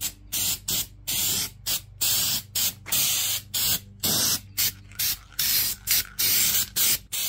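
Aerosol can of weld-through primer spraying in short repeated bursts, about two a second, as bare metal is coated.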